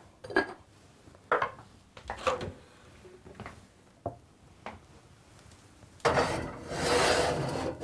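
Glazed clay cooking pot handled with a few light knocks of its lid and base against the board, then from about six seconds in a louder scraping rub lasting nearly two seconds as the oven is opened and the pot goes in.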